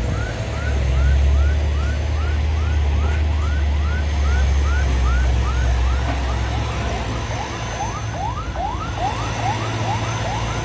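A heavy vehicle's engine running with a deep rumble that swells for the first few seconds. Over it runs a rapid series of short rising chirps, about three a second, which turn longer and overlapping in the second half.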